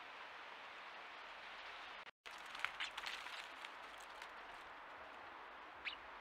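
Faint steady outdoor hiss, broken by a brief dropout about two seconds in, then a few short high chirps from house sparrows at a seed feeder, in a quick cluster soon after and once near the end.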